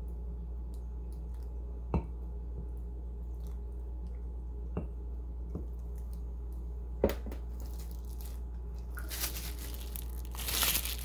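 Handling noise: a few separate light knocks and clicks, then a short burst of rustling near the end, over a steady low hum.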